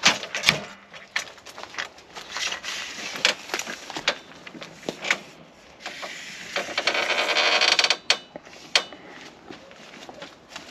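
A van's roll-out awning being set up: its aluminium legs and support poles clicking and clanking as they are handled and fitted. A little past halfway, a longer scraping rattle lasts about two seconds.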